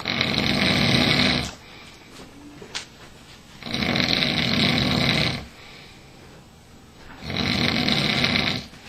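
A sleeping man snoring: three long, loud snores, each about a second and a half, coming about every three and a half seconds.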